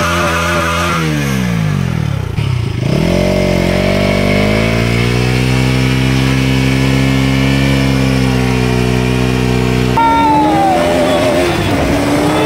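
Motorcycle engine revved hard and held high while the rear wheel spins in a burnout. The revs drop away about a second in, climb again and then hold steady. About ten seconds in the sound changes abruptly to a motorcycle on the move, its engine pitch sliding up and down.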